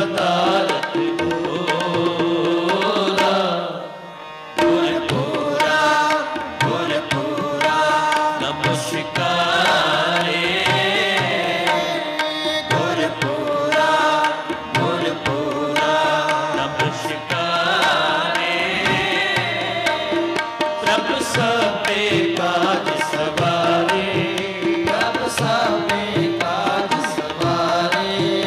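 Sikh Gurbani kirtan: several male voices sing together to the accompaniment of harmoniums and tabla. The music drops away briefly about four seconds in, then comes back at full level.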